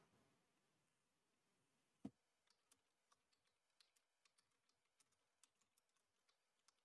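Faint computer keyboard typing: a dozen or so soft, irregular key clicks over the last four seconds, after one louder click about two seconds in.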